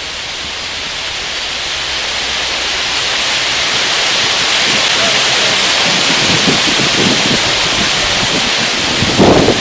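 Steady rushing of wind that builds gradually, with a single dull thump near the end.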